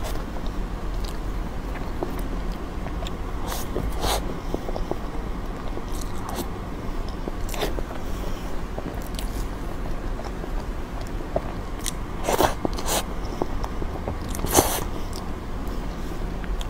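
Wet mouth sounds of eating soft green cream cake from a spoon, picked up close by a clip-on microphone: scattered lip smacks and chewing, with a few louder smacks in the second half, over a steady low hum.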